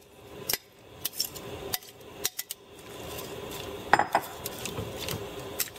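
Kitchen tongs clicking and knocking against a pot as bean sprouts are turned in boiling water, with the sharpest clacks about four seconds in. A steady hiss from the pot builds under the clicks in the second half.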